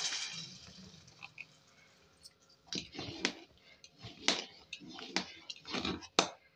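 Metal ladle stirring thick, wet khichdi in a pressure cooker: squelching stirs with sharp scrapes and knocks of the ladle against the pot, coming thickest in the second half.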